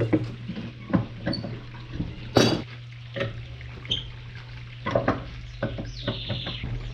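Metal pieces and tools knocking and clinking against each other at irregular moments, about once a second, over a steady low hum.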